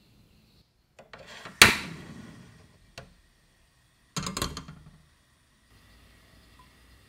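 A pan handled on a gas stove as the burner is lit: a sharp knock with a short ringing tail about a second and a half in, a single click, then a quick run of clicks just after four seconds. A faint steady hiss follows near the end.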